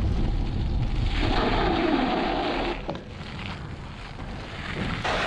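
Wind buffeting the microphone as a mountain bike descends fast, a loud steady rumble with a brighter hiss between about one and three seconds in. It dies down somewhat after about three seconds.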